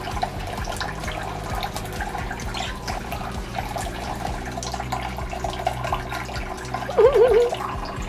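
Kitchen faucet running onto a plate in a stainless-steel sink while a budgie splashes and flaps in the water. About seven seconds in, a short wavering warble is the loudest sound.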